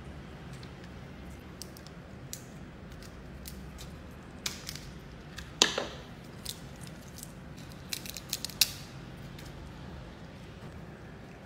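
Cooked crab shell crackling and snapping as it is pulled apart by hand and chewed by a cat: scattered sharp clicks, the loudest about six seconds in and a quick run of them about eight seconds in, over a low steady hum.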